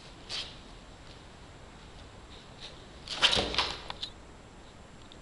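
A beagle getting down off a folding camp cot: a short cluster of knocks and rustling from the cot frame and the dog's paws about three seconds in, after a brief rustle near the start.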